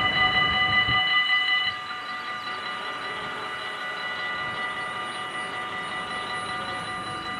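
Dutch level-crossing bells ringing steadily while the barriers lift after a train has passed. The train's rumble dies away about a second or two in, and the bells keep ringing.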